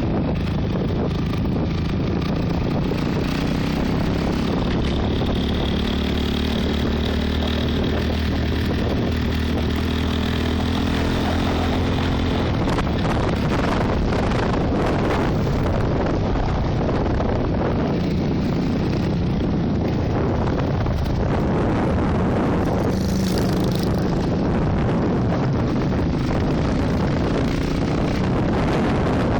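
Trail motorcycle engine running while riding, its pitch rising and falling with the throttle, under steady wind noise on the microphone.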